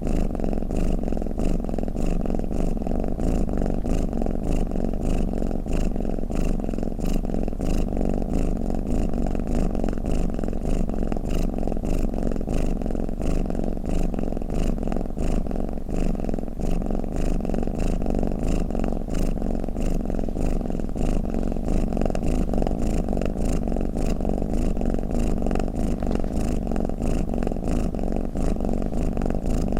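A domestic cat purring in a continuous, steady low rumble.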